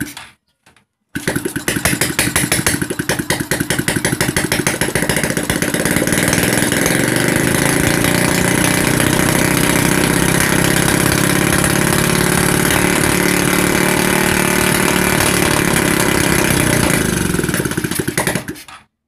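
The freshly overhauled 125 cc engine of a Honda RS125 motorcycle starts and runs, unevenly for the first few seconds, then steady and louder from about five seconds in. It stops abruptly near the end.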